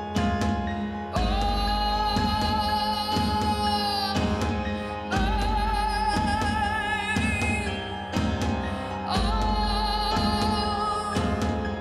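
Recorded music with singing. A high voice holds long, wavering notes, a new one starting about every four seconds, over a deep bass and occasional sharp percussive hits.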